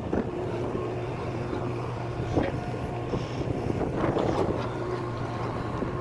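Steady machinery hum on a ship's deck, with wind buffeting the microphone and a couple of faint knocks.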